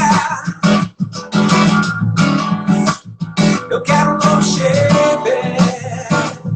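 Acoustic guitar strummed in a steady rhythm, an instrumental passage between sung lines of a song.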